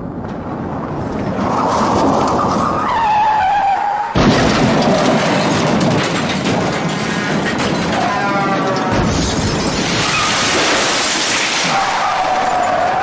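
Car crash sound effect: tyres squealing, then a sudden heavy impact about four seconds in with crashing metal and breaking glass. Another skid and impact come around nine seconds in, and a further tyre squeal near the end.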